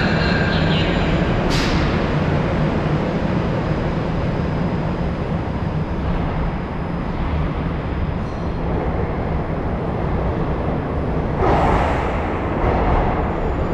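81-717/714 metro train running slowly past the platform, with a steady rumble of motors and wheels. There is a short sharp hiss about a second and a half in, and a louder burst of hiss near the end.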